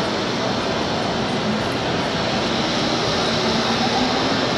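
Steady din of a busy exhibition hall: a constant wash of hall noise and crowd background with no clear single source.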